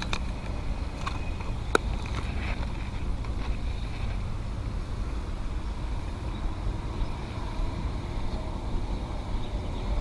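Steady low rumble of wind buffeting an action camera's microphone, with a single sharp click about two seconds in.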